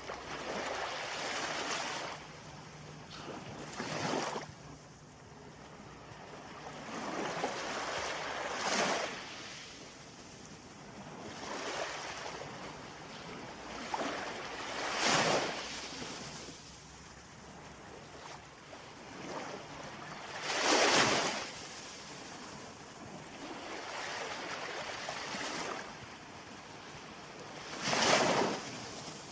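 Ocean waves breaking and washing on the shore: a steady wash of surf swelling into a louder crash roughly every six seconds, five times in all.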